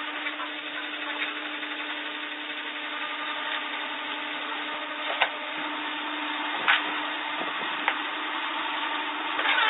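A power tool's motor running steadily with a low hum, and three or four sharp clicks in the second half.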